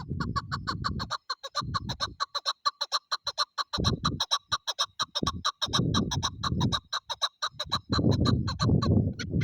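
Female chukar partridge calling in a fast, even series of short clucks, about seven or eight a second, over a low rumbling noise that comes and goes.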